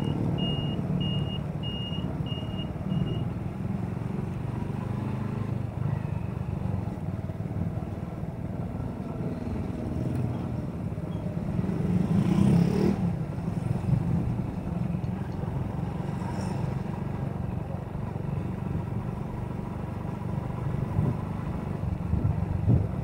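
Motorcycle engine running steadily under way, with road and wind noise, heard from the rider's own bike. A row of short high beeps sounds in the first three seconds, and the sound swells louder for a moment about twelve seconds in.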